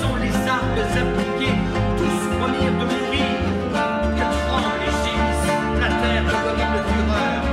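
Music with plucked strings and a moving bass line.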